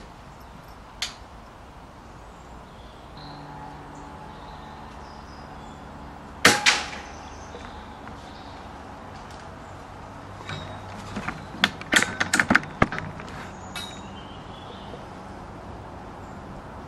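A single shot from a .22 Daystate Huntsman Regal pre-charged air rifle about six and a half seconds in: a sharp crack, followed at once by a second smack. About twelve seconds in comes a quick flurry of sharp clicks and knocks. There is a faint single click about a second in, over a low steady hum.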